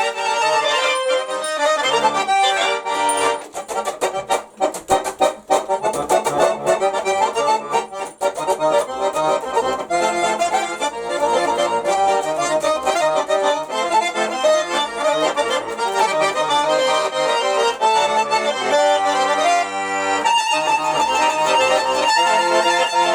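Russian garmon (Nizhny Novgorod button accordion) playing an improvised folk-style melody by ear, with right-hand tune over left-hand chords. A few seconds in there is a choppy run of short detached notes, and a low held chord comes near the end.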